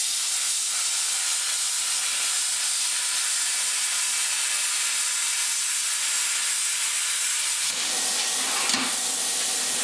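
Everlast Power Plasma 50 plasma cutter cutting quarter-inch plate at 50 amps: the torch's arc gives a steady, loud hiss. Near the end the arc goes out and the sound changes to a duller rush of air still blowing through the torch.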